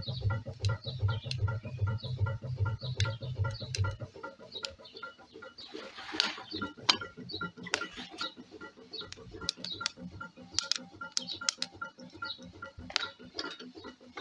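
Home-built wood-fired alpha Stirling engine running, its crank mechanism ticking and knocking in a steady rhythm. A deep rhythmic pulsing stops about four seconds in, and a brief rushing noise comes about six seconds in.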